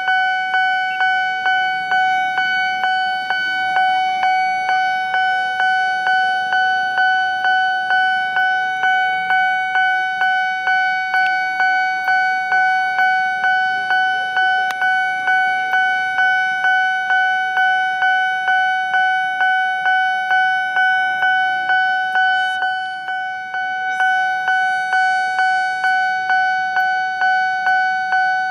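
Railway level-crossing warning bell ringing in even, repeated strikes of one ringing tone, about three every two seconds, with a brief break a little past two-thirds through. It is the crossing's warning that a train is approaching or passing.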